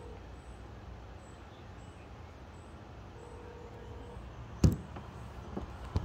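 Steady low traffic rumble of a street, broken by one sharp, loud knock about three-quarters of the way in and a lighter knock near the end.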